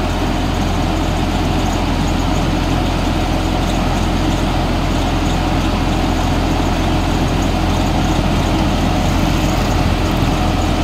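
Crawler rice combine harvester's diesel engine running steadily at idle.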